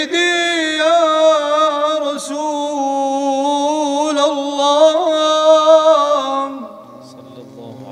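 Solo male voice singing unaccompanied in the style of an Arabic devotional praise song (madih). It is one long held, melismatic note with wavering ornaments, which stops about six and a half seconds in. A faint low hum is left after it.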